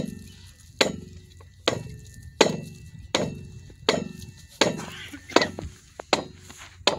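A steady series of sharp knocks, a little more than one a second and very evenly spaced, each followed by a short ring.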